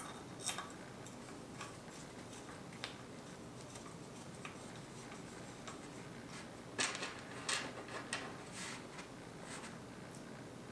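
Small screwdriver tightening screws into a stand: faint scattered clicks and scrapes, with a short cluster of louder ones about seven seconds in.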